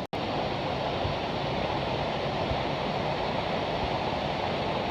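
Steady rush of falling water from a waterfall, broken for an instant just after the start.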